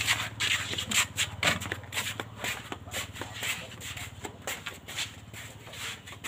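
Irregular knocks, clacks and scuffs of bricks and cement flowerpots being handled and set down, with footsteps in sandals on concrete, over a steady low hum.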